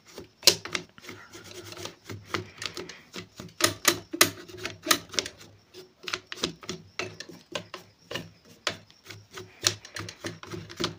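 Irregular scraping and clicking of a cleaning tool against the metal works behind a sewing machine's removed face plate, as caked dirt and dust are cleaned out.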